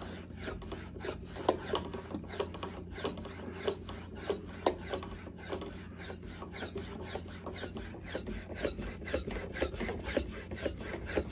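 The hand pump on a Motive Products Power Bleeder brake-bleeding tank is worked in an even rhythm of short strokes, about two to three a second. Each stroke builds air pressure in the brake-fluid tank, up to about 10 psi.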